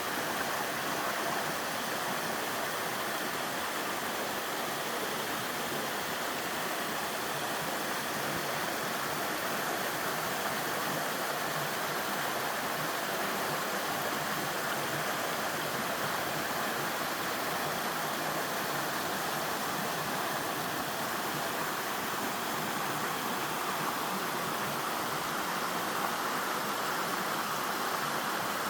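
A three-tiered slide waterfall, water sheeting down over rock slabs in a mountain stream with a steady, unbroken rushing.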